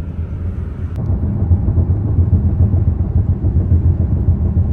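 Low, steady rumble of a jet plane flying low overhead, getting louder about a second in.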